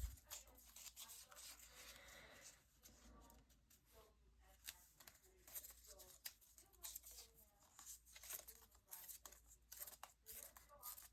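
Near silence with faint paper handling: small ticks and soft rustles as paper and card are moved about.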